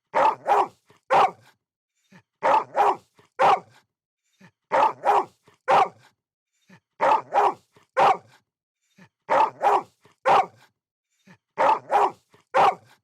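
A dog barking in repeated sets of three: two quick barks, then a third just after. The same pattern comes round evenly about every two and a half seconds, like a looped recording.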